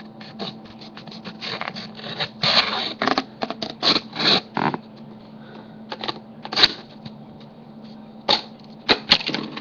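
Swiss Army knife blade cutting into a paper plate: a run of short scraping, tearing strokes, thickest in the first half, then a few more near the end.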